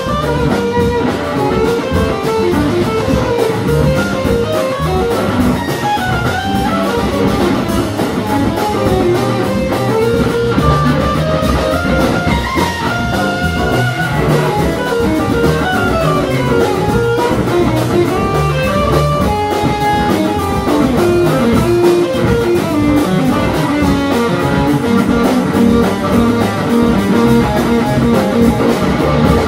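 Live jazz: a semi-hollow electric guitar takes a solo of quick, moving melodic lines over a band backing of piano, bass and drums.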